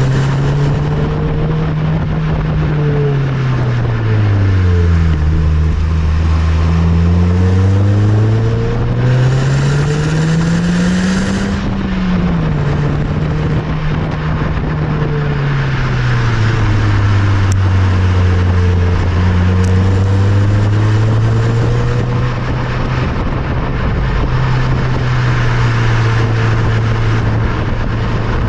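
Nissan Note Nismo S's 1.6-litre four-cylinder through its stock stainless exhaust while driving: the engine note falls as the car slows, climbs to a peak about eleven seconds in, drops suddenly, then holds steady with a slight rise near the end, over road and wind noise.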